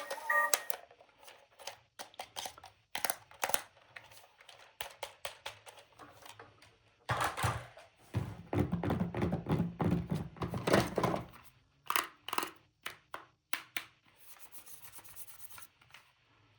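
Hands unboxing and handling plastic toys: scattered clicks and taps, with a few seconds of denser rubbing and rustling midway.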